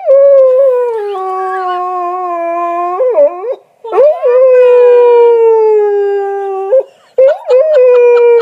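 Dog howling in three long, drawn-out whining howls, each sliding slowly down in pitch. It is a frustrated tantrum over a toy bone stuck out of reach under the sofa.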